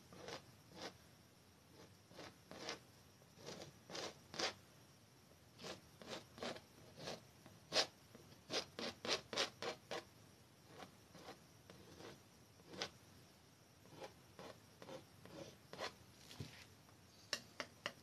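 Metal palette knife scraping oil paint onto a stretched canvas in many short, irregular strokes.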